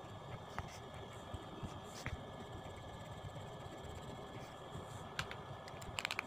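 Faint steady room noise with a light hiss and a thin steady whine, broken by a few small clicks and a quick run of clicks near the end.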